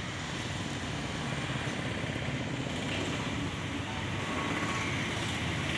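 A steady low rumble of outdoor background noise with no distinct events.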